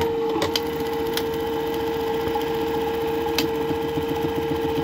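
Juki LBH-761 lockstitch buttonhole machine running through a buttonhole cycle: a steady motor hum with the mechanism's clatter and a few sharp clicks.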